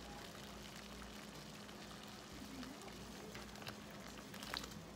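Pot of water at a rolling boil, bubbling faintly. Near the end, chopped red potatoes are tipped in from a plastic colander with a light knock.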